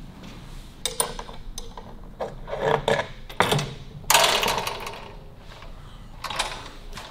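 Metal clinks and clatter as a sprung leather motorcycle saddle with chrome coil springs is worked loose and lifted off the frame. A louder scrape comes about four seconds in.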